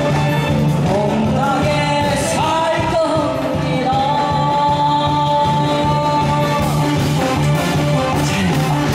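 A singer singing over instrumental backing music, with gliding notes and one long held note in the middle.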